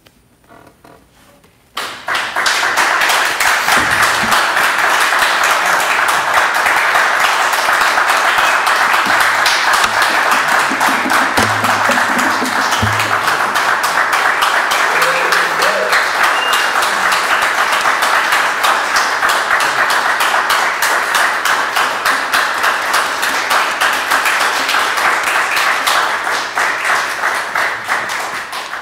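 Audience applauding, breaking out about two seconds in just after the final guitar chord has died away, and dying down near the end.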